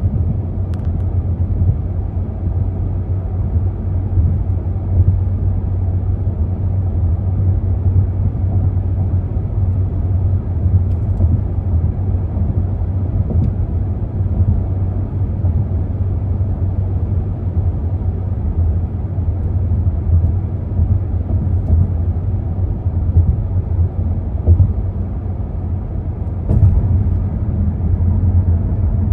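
Steady road noise heard inside a moving car's cabin: tyres and engine make an even low drone at highway speed. It gets a little louder in the last few seconds.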